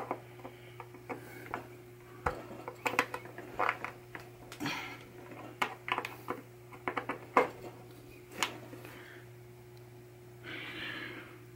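Irregular light clicks and taps of a pinball pop bumper's plastic skirt and switch being pressed and wiggled by hand to check that the newly tightened switch is centred, over a steady electrical hum. A short soft rustle comes near the end.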